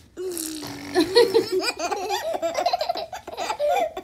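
A baby laughing, many quick laughs in a row, after one long held voice note in the first second.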